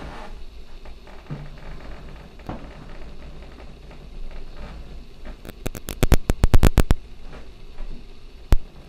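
A run of sharp clicks and knocks, about a dozen in quick succession around six seconds in and a single one near the end, over a low rumble.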